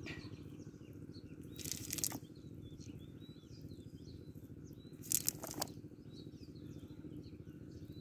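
A cast net holding small fish is handled by hand on the mud, giving two short rustling, flapping bursts about two and five seconds in. Faint bird chirps go on in the background.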